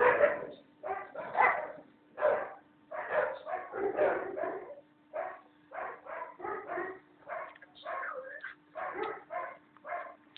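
Dogs barking in play, in many quick, irregular bursts, over a faint steady hum.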